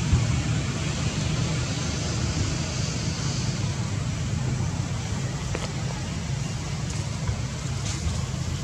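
Steady outdoor background noise: a low rumble with an even hiss above it.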